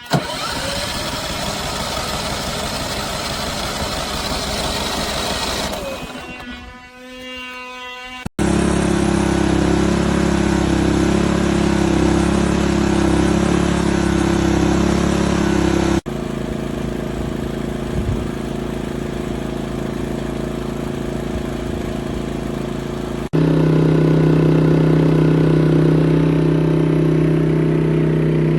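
Westinghouse portable inverter generator's engine running steadily, heard in several short clips cut one after another, its pitch differing from clip to clip.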